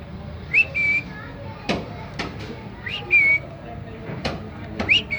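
A bird repeating a short whistled call that rises and then holds level, three times about two seconds apart, with sharp clicks in between.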